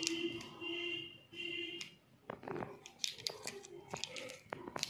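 Plastic lipstick tubes and their cardboard box handled in the hands, giving a series of sharp clicks and rustles. For about the first two seconds a repeated pitched tone sounds in short pulses.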